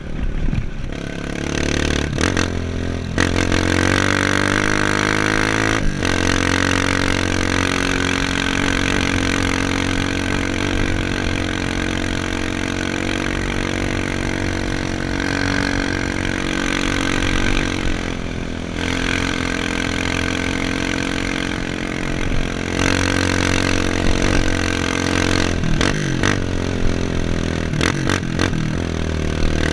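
Off-road motorcycle engine running under way, its note rising and falling as the throttle is worked, with brief dips several times as the rider eases off or changes gear.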